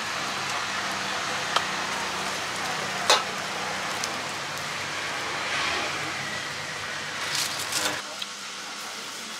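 Steady street background noise with a low hum, over which a metal spoon clicks and knocks against a steel bowl and plastic cup while scooping chili-coated fruit. A single sharp knock comes about three seconds in and a quick cluster of clicks near the end, after which the background drops.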